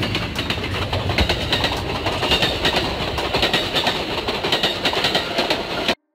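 Amtrak passenger train coaches rolling past close by, a loud rushing rumble of wheels on rails with rapid clicking and clattering. It cuts off abruptly near the end.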